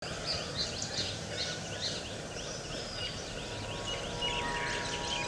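Small wild birds chirping in a busy chorus, with many short, quick high notes several a second over a steady outdoor hiss. A steady low hum made of several tones comes in about three and a half seconds in.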